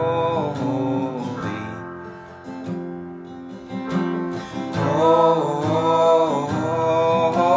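Acoustic worship music: a strummed Taylor GS Mini Koa Plus steel-string acoustic guitar with Yamaha P-125 digital piano, and a voice holding sung notes near the start and again about five seconds in.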